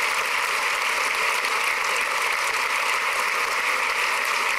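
Crowd applauding, a dense, steady clapping that holds even throughout.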